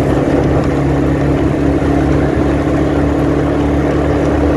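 Motorcycle engine running at a steady cruising speed, heard from the rider's seat as an even hum with road noise.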